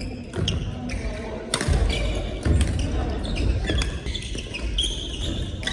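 Badminton rally on a wooden sports-hall floor: sharp racket hits on the shuttlecock, with shoes thudding and squeaking on the court.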